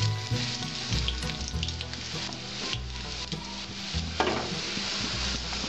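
Chopped garlic and dried red chillies sizzling in hot mustard oil in a metal kadai, stirred with a spatula that scrapes and taps the pan now and then. This is the tempering (phoron) stage, with the garlic browning before the lentils go in.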